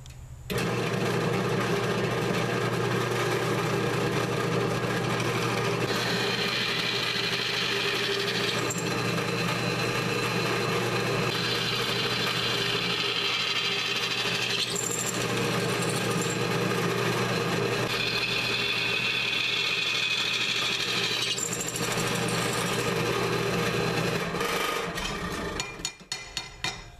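Drill press motor starting up and running steadily, with three spells of a bit cutting metal as bolt holes are drilled to mount the sprocket to the mini bike wheel; the motor spins down near the end.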